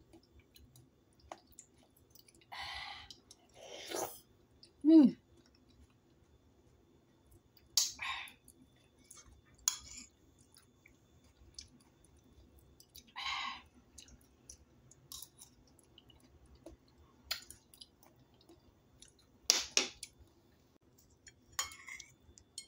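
Close-up eating sounds: chewing and wet mouth sounds of soft tofu in soy sauce, with a metal spoon clicking against a ceramic plate several times. A short hummed "mm" falls in pitch about five seconds in, the loudest sound.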